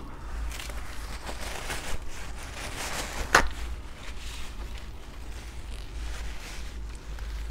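Close-miked eating sounds: chewing crispy fried food, with scattered crackles and one sharper crunch or click about three and a half seconds in.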